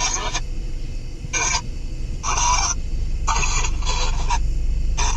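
Ghost box (spirit box) radio sweep giving choppy short bursts of static and broadcast fragments every second or so, with gaps of hiss between.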